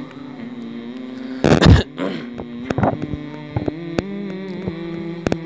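Handheld Bluetooth karaoke microphone's built-in speaker, switched on with the volume turned up, putting out a low steady hum made of several tones that shift in pitch now and then. A loud rushing burst comes about one and a half seconds in, and a few sharp clicks come near the end.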